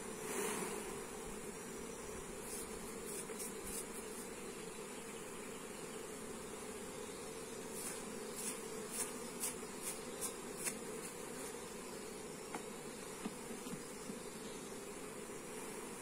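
A honeybee colony buzzing steadily from an opened hive while a frame of comb is worked. Short brushing swishes sound over the hum, a few early on and a quick run of about six about halfway through, as the bees are swept off the honeycomb frame with a bee brush.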